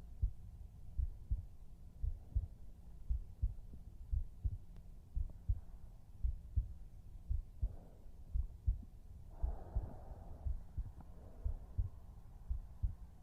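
A heartbeat heard close up, as with an ear pressed to a chest: a steady lub-dub double thump about once a second, at a normal resting pace.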